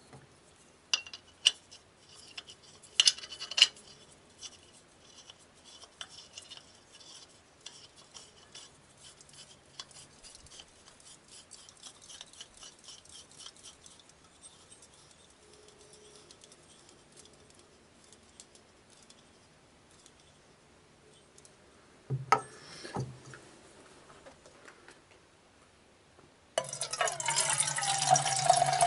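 Light metal clinks and small ticks of camp cookware being handled, with a couple of louder clinks about a second in, around three seconds in, and again a few seconds before the end. Near the end a loud steady rushing sound starts.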